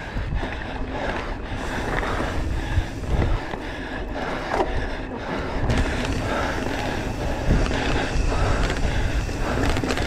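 Mountain bike descending a rough dirt trail: tyres running over the ground with a constant rattle and clatter from the bike, and wind buffeting the microphone.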